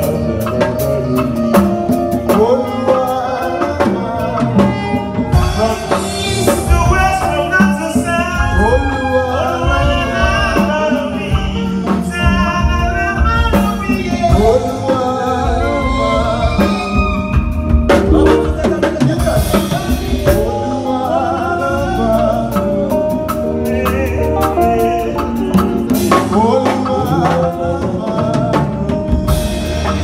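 Live band playing through a PA system, with a man singing the lead into a microphone over a drum kit and electric guitars, as in a band's sound check.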